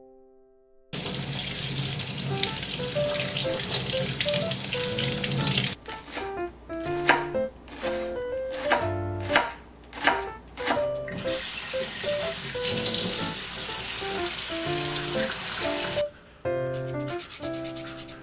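Light piano background music. In the middle, a kitchen knife chops green onions on a cutting board in a series of sharp strokes, with a steady hiss before and after.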